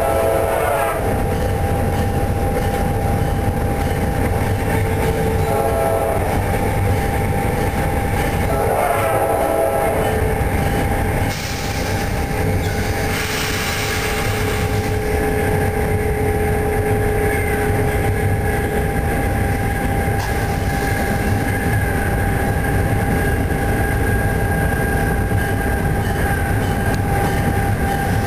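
EMD F40-hauled passenger train running on the rails, heard from its open rear platform: a steady rumble of wheels and diesel locomotive, with a few brief pitched tones over it.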